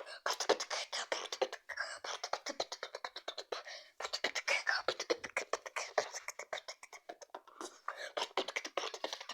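Vocal beatboxing: fast runs of mouth-made clicks, hissing hi-hat strokes and breathy snares, with a brief break about four seconds in.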